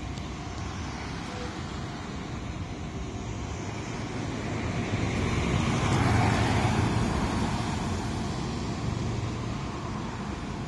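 Road traffic with one vehicle passing close, swelling to its loudest about six seconds in and then fading.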